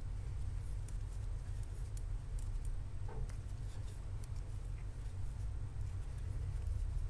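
Metal knitting needles clicking faintly and irregularly while knitting one-by-one rib, over a steady low hum.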